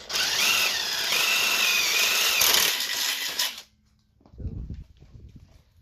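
Cordless power drill boring through a steel bracket, its motor whine wavering in pitch under load for about three and a half seconds before it stops. A low thump follows about a second later.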